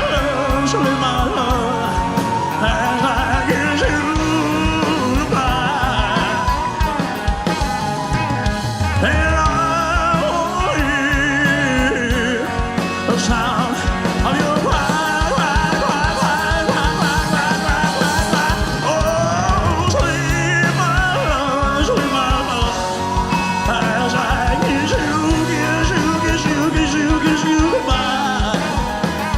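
Live rock band playing a ballad: drums, bass, keyboards and guitar, with singing voices but no clear lyrics.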